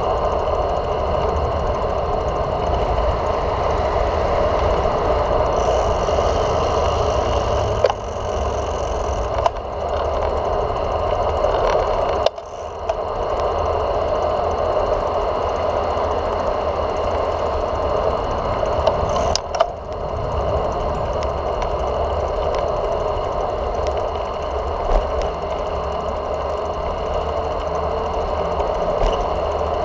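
Steady mechanical hum and rattle of a bicycle ride picked up by a camera mounted on the bike, with low road rumble and a few brief dips and clicks.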